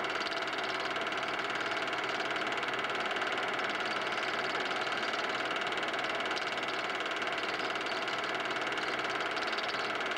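Steady mechanical whirr and chatter of a film projector running, unchanged throughout, as heard when silent Super 8 cine film is transferred.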